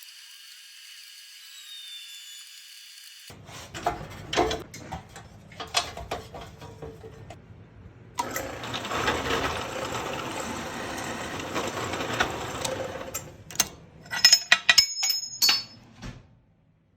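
A small electric motor being handled and clicked back together, then running with a steady whir for about five seconds; near the end come a few sharp clicks with a brief high whine.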